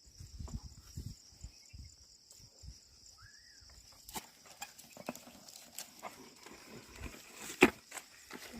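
Ox team pulling a plough: irregular soft thuds and clicks of hooves and plough in the soil, with a sharper knock near the end and a brief faint chirp about three seconds in.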